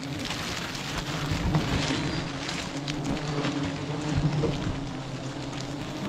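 A swarm of honeybees humming steadily around an open comb, with the crackle and rustle of a plastic bag pressed and handled against the comb.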